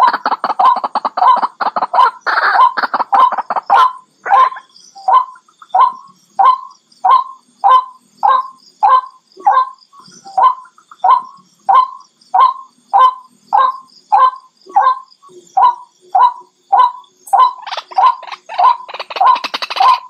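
White-breasted waterhen calling. It opens with a fast, dense run of overlapping notes for the first few seconds, then settles into a steady series of single notes, about one every 0.6 s, which quicken and crowd together again near the end.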